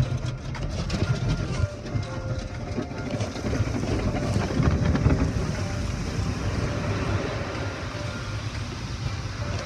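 Spinning cloth brushes and hanging cloth curtains of an automatic car wash thrashing and slapping against the car's body and glass, heard from inside the cabin as a continuous churning rumble.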